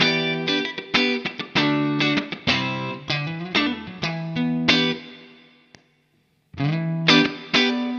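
Electric guitar played through an optical compressor pedal: picked chords and single notes with sharp attacks and even sustain. About five seconds in, one chord is left to ring and fades away to silence. Playing starts again a second or so later.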